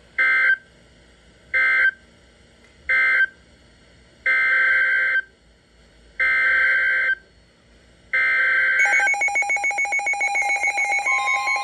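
Emergency Alert System SAME data bursts: three short bursts of the end-of-message code, then three longer bursts of the next alert's header. A pulsing electronic attention tone follows, starting about nine seconds in, and a steady higher tone joins it near the end.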